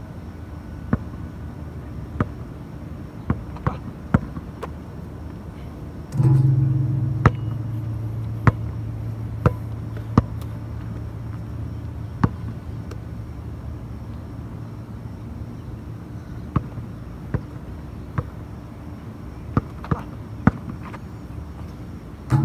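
A basketball bouncing on an outdoor court: single sharp knocks at irregular intervals. About six seconds in, a loud low sustained musical note comes in suddenly and slowly fades.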